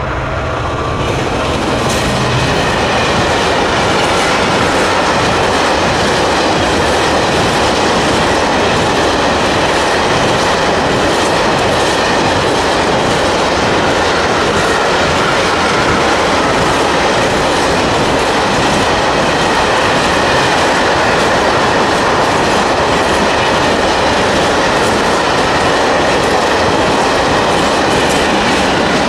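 EMD Class 66 diesel-electric locomotive, with its two-stroke V12 engine, passing close in the first couple of seconds. A long train of covered grain hopper wagons then rolls steadily past, with loud rumble and clickety-clack of the wheels on the rail joints.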